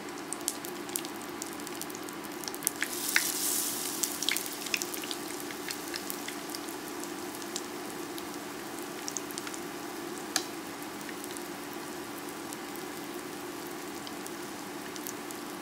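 Chickpea burger patties shallow-frying in grape seed oil in a nonstick skillet: a steady sizzle with scattered sharp spits and crackles. About three seconds in the sizzle swells louder for a second or two as a second raw patty goes into the hot oil.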